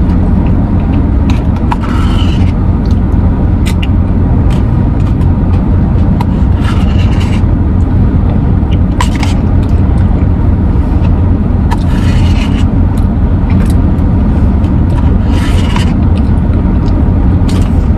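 Steady low rumble, likely a car, with a few short scrapes and sharp clicks scattered through it.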